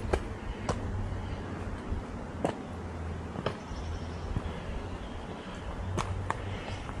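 Hiker walking a mountain trail: sharp taps at uneven intervals, about one a second, over a steady low rumble.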